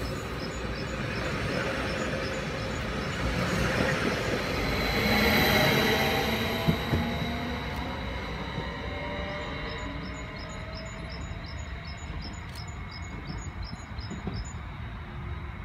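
Stadler FLIRT electric multiple unit pulling away, its traction motors whining in several rising tones as it accelerates. It is loudest about five seconds in, then fades as it recedes. A single sharp click comes a little before seven seconds.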